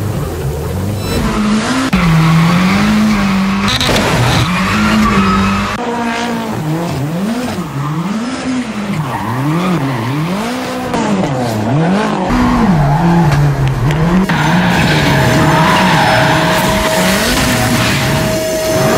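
Ford Focus RS RX rallycross car drifting in donuts: the engine revs up and down in quick swings, about once a second, over sustained tyre squeal. About three-quarters of the way through, a steady high tone joins in.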